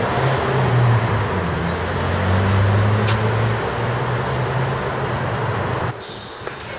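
Street traffic: a motor vehicle's engine hum with road noise, its pitch shifting a little. It cuts off suddenly near the end.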